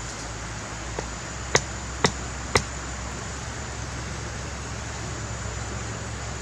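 Three sharp knocks about half a second apart, with a fainter one just before, from a green wooden stake being driven into the ground beside a campfire, over a steady background hiss.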